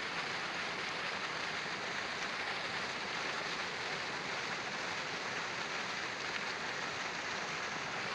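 Sand-and-water slurry gushing from a dredge pump's discharge pipe and splashing into a muddy pond: a steady rushing, pattering splash.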